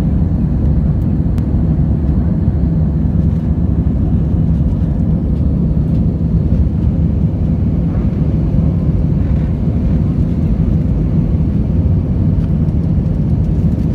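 Steady low roar inside a jet airliner's cabin as it climbs after takeoff: engine and airflow noise heard through the fuselage, with a faint steady hum beneath it.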